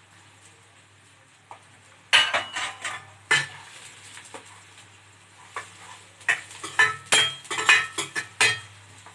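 A metal spoon stirring and scraping in a metal cooking pan, clinking against its sides in irregular bursts that start about two seconds in.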